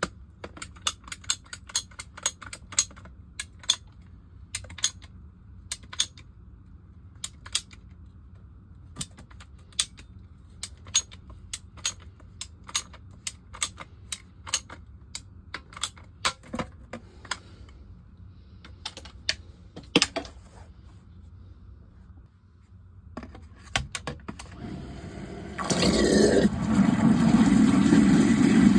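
Ratcheting PVC pipe cutter clicking as it is squeezed through 1.5-inch Schedule 40 PVC drain pipe, in sharp clicks about one to three a second. About 26 seconds in, a submersible sump pump starts and runs loudly with rushing water as it empties the pit.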